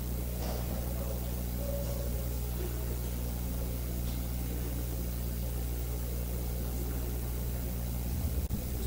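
Steady low hum in the room, with no speech; it breaks up briefly near the end.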